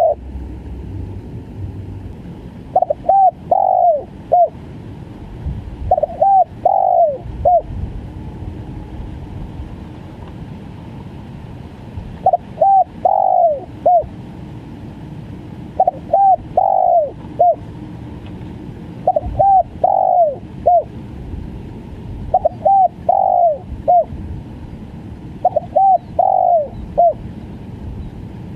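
Spotted dove cooing in the stuttering 'gagap' style: seven phrases of a few short, quick coos each, one every three to four seconds, over a steady low hiss.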